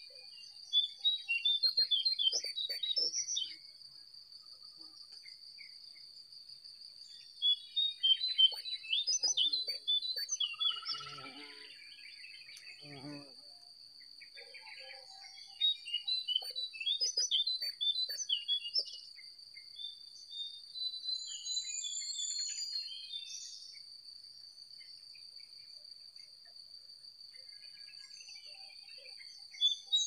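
Wild songbirds singing in bouts of quick chirping and twittering phrases, with short pauses between bouts. Under them runs a steady, high-pitched insect drone.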